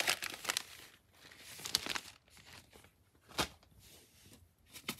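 Clear plastic wrapping on a new tool set crinkling and rustling as it is handled, in several short bursts. One sharp knock about three and a half seconds in, and another short one near the end.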